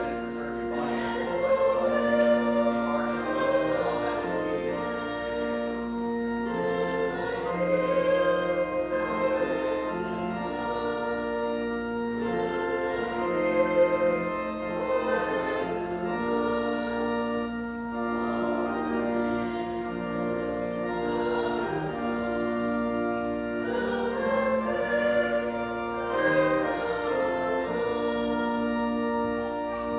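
Organ playing a slow hymn with voices singing along in long held notes that change every second or two.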